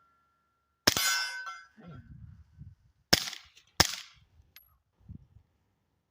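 Three suppressed shots from a Taurus G3 Tactical 9mm pistol wearing a SilencerCo Octane 9 suppressor, the last two in quick succession. The first shot is followed by about a second of metallic ringing, like a struck steel target.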